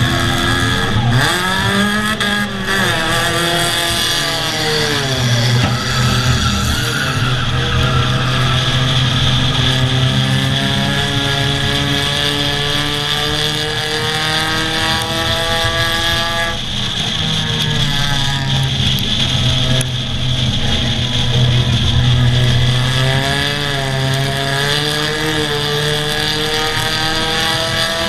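Race car engines running hard on a short oval track, with several engines rising and falling in pitch as the cars accelerate and lift. It is heard from an engineless car being towed on a chain behind the car that pulls it, so the engines are those of the tow car ahead and the cars around it.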